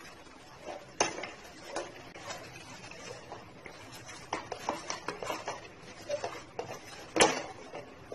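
Wooden spatula stirring and scraping a thick milk-powder and sugar-syrup mixture in a kadhai, with irregular knocks and scrapes against the pan. The loudest knocks come about a second in and near the end.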